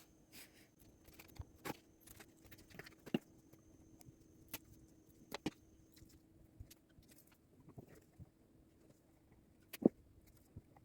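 Scattered light clicks and knocks, irregularly spaced, with a sharper knock near the end, over a faint steady hum.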